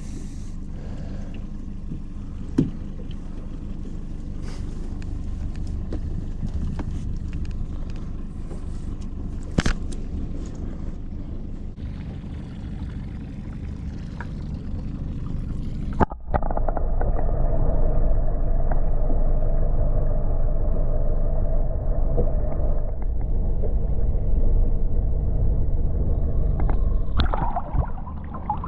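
Fishing boat's outboard motor running steadily with a low rumble. About halfway through, the sound jumps louder and a steady hum comes in, with a few sharp clicks scattered through.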